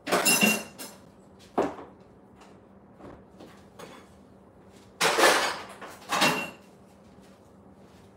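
Clatter of kitchen things being moved and put away while a counter is tidied: four short knocks and bangs, two near the start and two about five and six seconds in.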